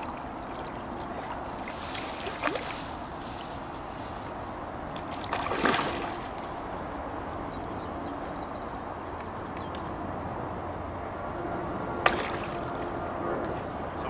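Hooked carp thrashing at the water's surface during the fight, a few separate splashes over a steady slosh of disturbed water: one about two seconds in, a bigger one about halfway, and a sharp one near the end.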